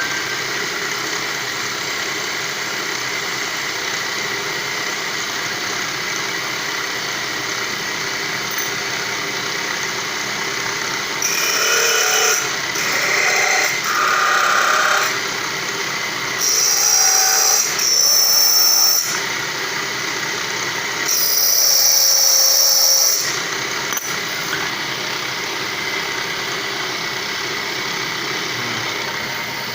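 Electric polishing machine running steadily while a metal hand bell is polished on it, with three louder spells of a higher-pitched whine, each starting and stopping abruptly.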